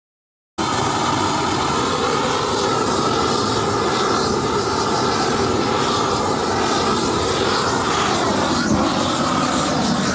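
Propane torch burning with a steady rushing flame, played over painted deck boards to burn off the old paint. It starts abruptly about half a second in.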